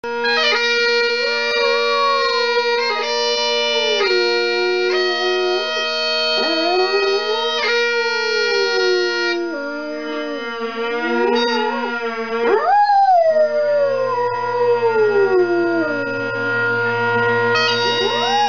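Black Labrador howling along to held musical notes, its voice sliding up and down against the steady chords. About two-thirds of the way through it gives a high rising howl that falls away slowly, and it starts another rising howl near the end.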